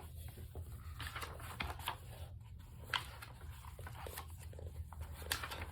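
Faint, irregular clicks and light rustling over a steady low hum.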